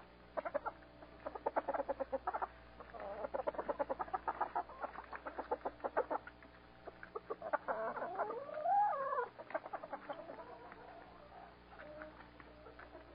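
Chickens clucking in quick runs of short notes, then about eight seconds in one drawn-out call that rises and falls in pitch, the loudest sound of the stretch, before softer clucks.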